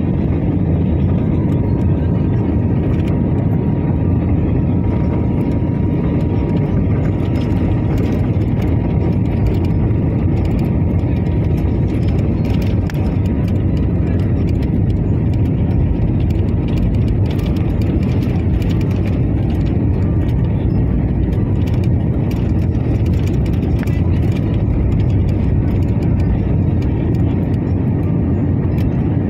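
Jet airliner cabin noise from a seat over the wing as the plane rolls along the ground: a steady, loud engine and rolling rumble with a faint high whine and small scattered clicks.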